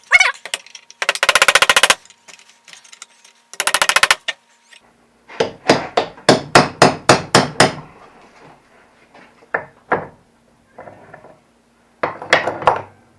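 Hammer blows on a thermostat wedged in its housing, knocking it in to collapse it so it can be pulled out. Two short bursts of rapid rattling impacts come first, then a run of about ten sharp strikes at roughly four a second, then a few scattered knocks.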